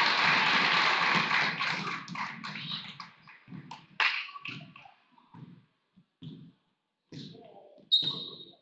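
Gym crowd applause and chatter fading out over the first couple of seconds. Then a basketball bounces a few times on the hardwood floor, with short thumps that echo in the gym, and a short high whistle sounds near the end.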